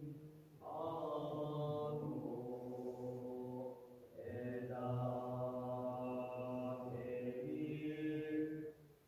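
Buddhist dawn-service chanting: two long, drawn-out chanted phrases on a low pitch, with a short break about four seconds in.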